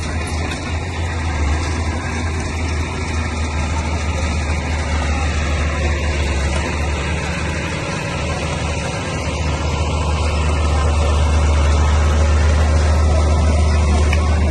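Bulldozer's diesel engine running steadily with a deep hum, growing louder about ten seconds in.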